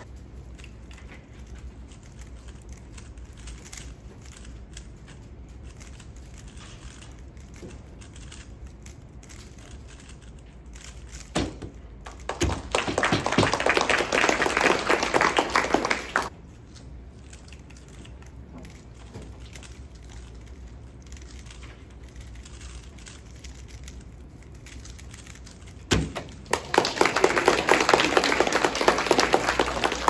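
Faint quick clicking of speedcubes being turned. About eleven and a half seconds in a sharp slap as a solver stops the timer, then applause for about four seconds; near the end another slap, then applause again.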